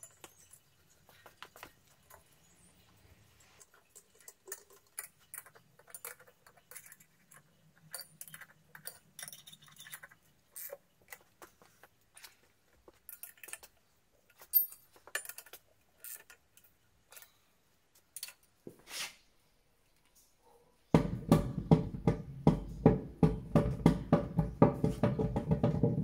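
Small metallic clicks and clinks of a wrench working the bolts that hold the anvil down on its wooden stand. About five seconds before the end a much louder rhythmic clatter with a ringing tone starts suddenly.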